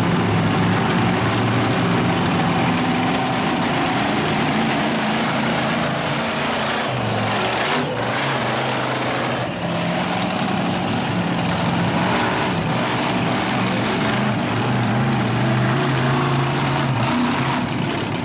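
Monster truck's large engine running and being revved, its pitch rising and falling.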